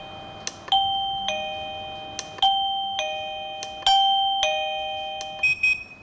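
DIGOO DG-SD20 wireless doorbell receiver chiming a two-note ding-dong three times through its small speaker. Each pair falls from a higher note to a lower one and rings out, with a short click just before each pair. A few quicker, higher notes come near the end.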